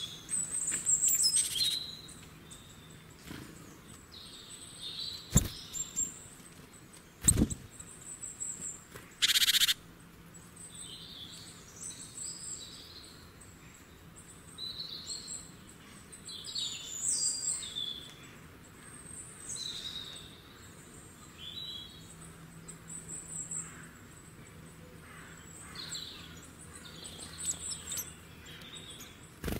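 Birds chirping and calling, short high notes scattered throughout, with two sharp knocks a few seconds in and a brief burst of hiss about nine seconds in.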